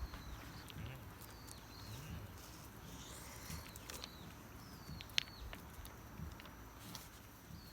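Birds calling over and over, short curved whistled notes about once a second, over a steady low rush of a nearby river. A single sharp click about five seconds in.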